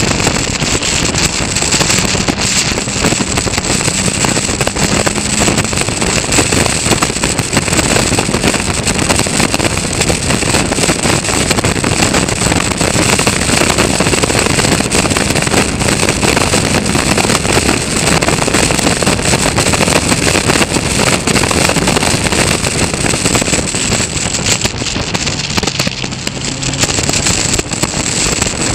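Caterham Seven race car at speed, heard onboard: four-cylinder engine running hard at high revs under heavy wind rush on the open car's microphone. The engine note dips briefly near the end.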